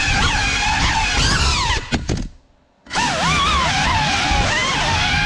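GEPRC CineLog 35 6S quadcopter's brushless motors and ducted props whining, the pitch sweeping up and down quickly with the throttle. About two seconds in, the sound drops out for about half a second, then comes back with a rising whine.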